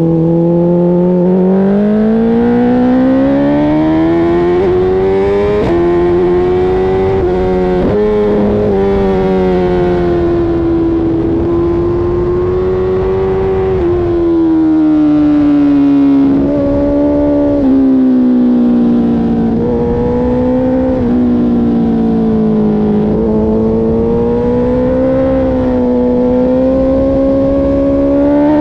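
Sport motorcycle engine running hard at high revs, its note climbing and falling with the throttle, with a few quick breaks in pitch, over a steady rush of wind.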